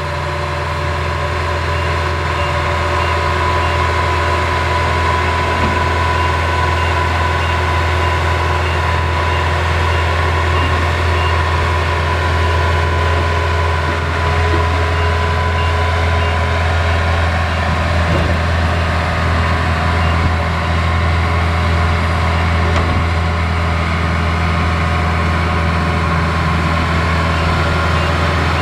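Kubota DC-70 Plus rice combine harvester running steadily under its diesel engine: a loud, even low drone with a steady whine above it.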